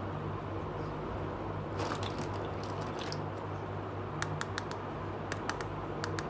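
Small plastic toys handled on a tabletop: a brief rustle about two seconds in, then a string of sharp light clicks in the second half. A steady low hum lies underneath.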